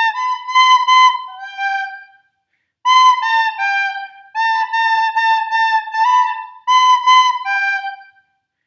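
Soprano recorder playing a short sight-read melody on the notes B, A and G, in even quarter and eighth notes. There is a brief rest about two seconds in, then the phrase starts over.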